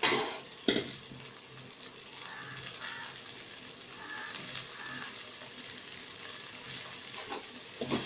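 Sliced button mushrooms sizzling in hot oil in a non-stick wok as they are dropped in, with two sharp clatters in the first second. A spatula starts clicking against the pan near the end.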